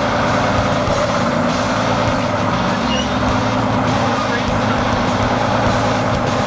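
Fire truck engine running steadily.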